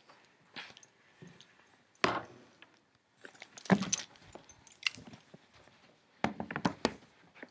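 Handling noise from a camera being carried and set down: irregular knocks, rustles and small clinks, with two clattery clusters of taps in the middle and near the end.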